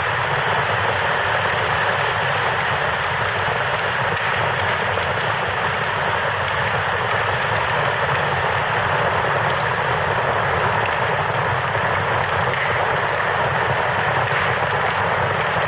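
Steady rush of flowing river water with faint crackling from a campfire.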